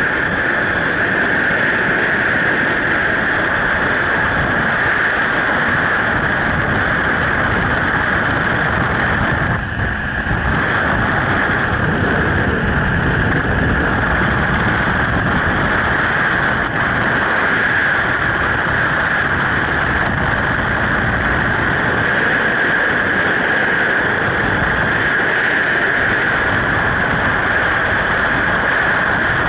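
Freefall wind rushing over a skydiving camera's microphone: loud, steady air noise at freefall speed, briefly easing about a third of the way in.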